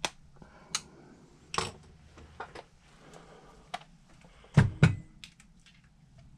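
Small parts of a scale-model lift kit being handled and set down on a work surface: scattered clicks and taps, with two louder knocks close together about four and a half seconds in.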